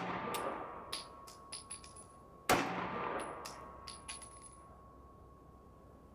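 Palmetto State Armory Dagger compact 9mm pistol firing a single shot about two and a half seconds in, with the echo of a shot fired just before dying away at the start. Light metallic clinks follow each shot as spent brass casings land.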